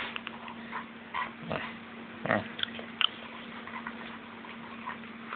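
Small dog eating from a hand-held glass bowl: irregular chewing and smacking with a few short sharp clicks.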